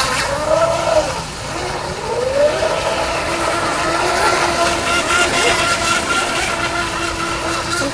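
Electric radio-controlled racing boat running at speed across the water: a steady motor whine whose pitch swings down and up twice in the first three seconds.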